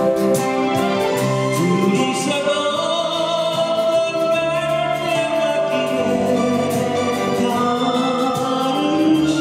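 Singing of a slow Korean song with acoustic guitar strumming, including a long held note in the middle.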